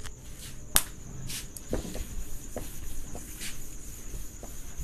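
A cloth duster wiping a whiteboard: a sharp click about a second in, then soft taps and a brief brushing swish. Crickets chirr steadily underneath.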